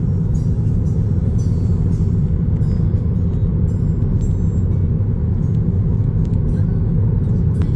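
Steady low rumble inside a moving car's cabin: tyre and road noise mixed with the rumble of a freight train running alongside.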